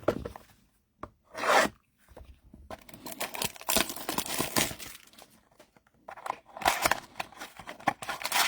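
Foil wrapper of a baseball trading card pack being torn open and crinkled in the hands, in irregular rustling stretches.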